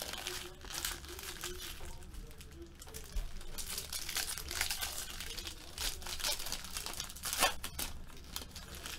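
Foil trading-card pack wrappers crinkling and tearing as packs are ripped open, an irregular run of rustles with a sharper crackle about seven seconds in.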